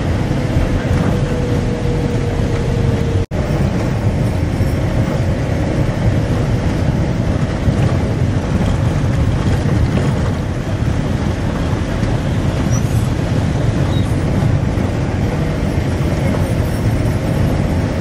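Safari bus running along a road, heard from inside the cabin: a steady low rumble of engine and road noise. The sound cuts out for a moment about three seconds in.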